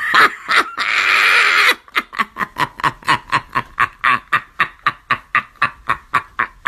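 A person's breathy, wheezing laughter: a long hissing exhale, then a fast run of short wheezy bursts, about six a second.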